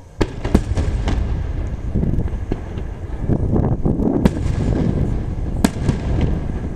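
Aerial firework shells bursting in quick succession: a string of sharp bangs, the loudest about half a second in, about four seconds in and near the end, over a continuous low rumble of further booms.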